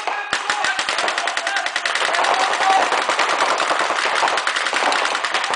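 Reball markers firing reusable rubber balls in rapid, overlapping strings of shots from several players, starting about a third of a second in after a brief lull. A few faint shouts sound under the shots.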